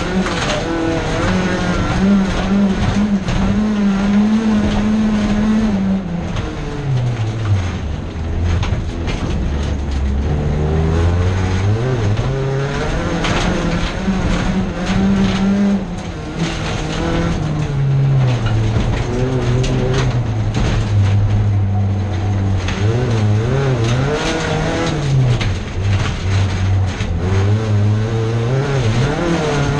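Folkrace car's engine, heard from inside its stripped bare-metal cabin, revving up and down through gear changes and corners, its pitch dropping lowest about a third of the way in. Frequent knocks and rattles from the bare body run through it.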